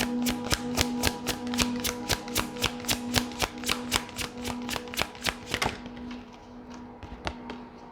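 A deck of tarot cards being shuffled by hand: rapid clicks, about five a second, that stop about three quarters of the way through. Soft background music with steady held notes plays underneath.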